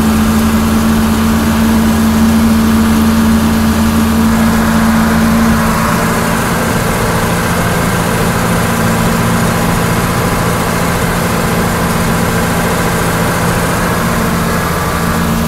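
John Deere 4430 tractor's turbocharged six-cylinder diesel engine running steadily, heard from inside the cab. Its drone shifts in tone about six seconds in.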